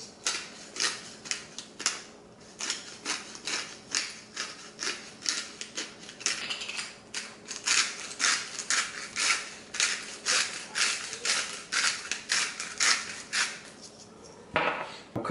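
Salt and pepper shaken from a shaker: a run of short, dry rattles, about two or three a second, with a brief pause near the end.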